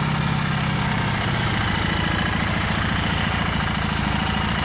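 Harley-Davidson Street 750's liquid-cooled Revolution X V-twin idling steadily, with an even low pulsing beat.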